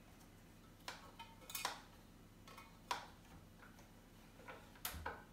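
Plastic parts of a hand-crank rotary food grater being fitted and twisted into place: a handful of separate sharp clicks and knocks as the pieces catch and lock.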